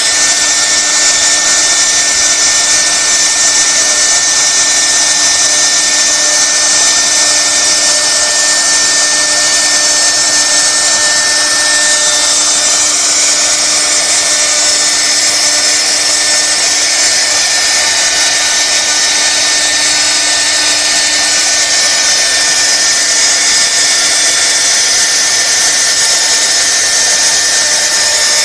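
CNC router spindle running at speed while its bit carves a relief pattern into wood: a steady whine over a constant high hiss of cutting.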